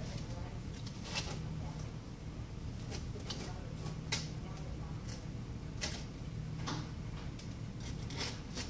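Irregular small clicks and scrapes of hand tools and parts being handled during an iPad glass replacement, about six in a few seconds, over a steady low hum.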